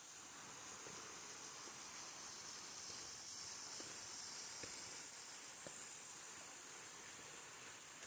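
Rushing water of a mountain stream, a steady hiss that swells and then eases near the end, with a few faint footsteps in the middle.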